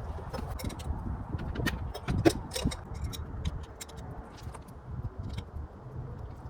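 Scattered small clicks and clinks of hands handling metal parts or tools, with a louder knock about two seconds in, over a low steady rumble.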